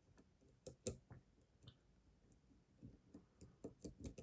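Faint, scattered clicks of a dimple pick and tension wrench working the pins of a Mul-T-Lock 7x7 dimple cylinder, coming more often near the end, as a spool pin that is holding up the core is sought.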